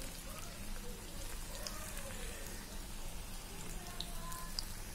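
Cheese balls deep-frying in hot oil in a kadai: a steady sizzle and bubbling, with a few small sharp pops near the end, as a fresh batch of balls goes into the oil.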